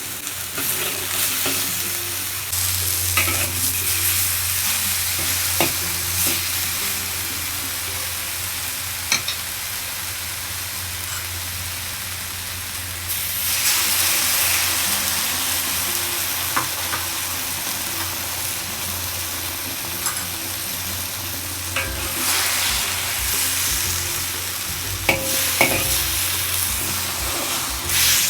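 Food sizzling as it fries in a pan, stirred with a utensil that clinks against the pan now and then. The sizzle grows louder a couple of seconds in and again about halfway through.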